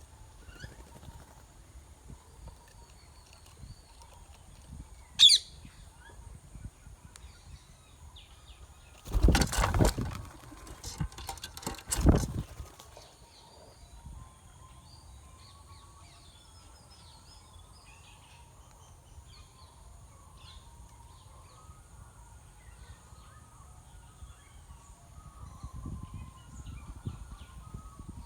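Rose-ringed parakeet chicks chirping faintly, with one sharp rising screech about five seconds in. Two loud rustling bursts come around nine and twelve seconds in.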